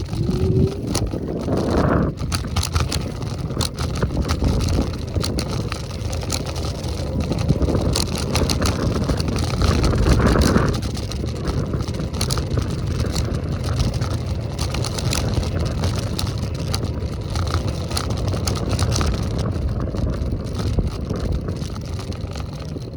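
Wind buffeting the microphone with road rumble from an electric scooter in motion, swelling twice: about two seconds in and again around ten seconds.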